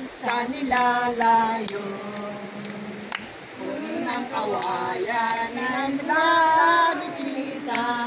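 Women's voices singing a song together in held notes, over a steady high hiss.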